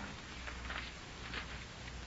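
Faint soft rustles, twice, over the steady hiss and low hum of an old radio recording: a radio-drama sound effect of a book's pages being leafed through.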